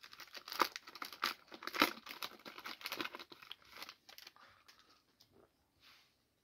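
Foil trading-card pack wrapper being torn open and crinkled by hand, a dense crackling for about four seconds that dies away to a few faint rustles as the cards are slid out.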